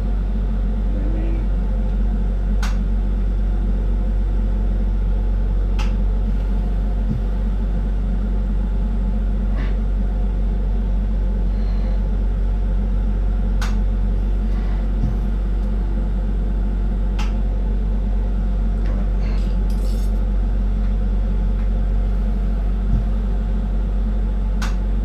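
Steady low roar of a lit glassworking bench torch, with a few sharp, brief clicks of glass rods touching.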